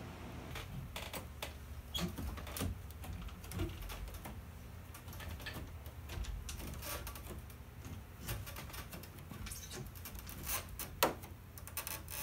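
Bare feet stepping down wooden stairs: irregular knocks and taps on the boards, the loudest about eleven seconds in, over a low steady hum.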